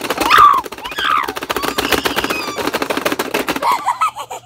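Rapid plastic clicking from a Pie Face Showdown toy as its buttons are mashed, with a couple of short squeals from the players. The clicking stops shortly before the end as the toy's hand flips up.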